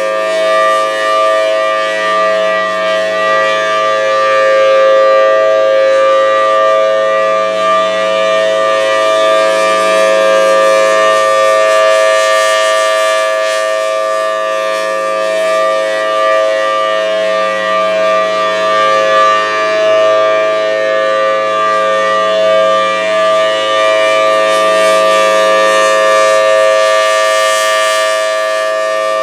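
Thunderbolt 1000T outdoor warning siren sounding a steady alert tone at constant pitch, its level swelling and fading slowly as the rotating horn sweeps around.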